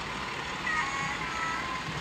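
OO gauge model diesel locomotive's sound decoder sounding its horn, a couple of held tones at different pitches lasting about a second, over the steady engine sound and the running of the train on the track.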